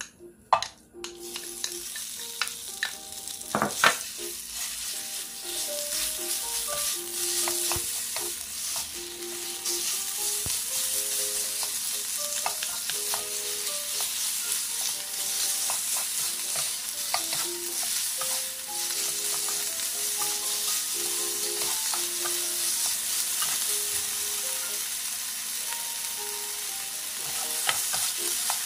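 Marinated pork strips sizzling in a hot nonstick frying pan as they are stir-fried, with two spatulas clicking and scraping against the pan. The sizzle starts about a second in, as the meat goes into the pan, and there is one sharp knock near four seconds in.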